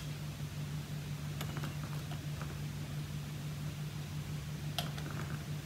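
A steady low hum in the room, with a few faint clicks and taps of small plastic model parts and a glue bottle's brush cap being handled, the sharpest near the end.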